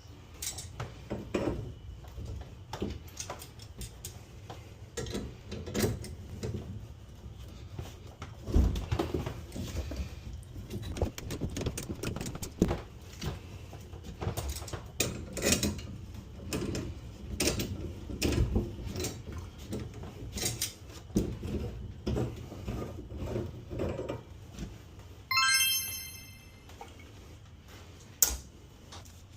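Irregular knocks, clinks and clatter of hand tools and plumbing fittings being handled, with a short high-pitched squeak near the end.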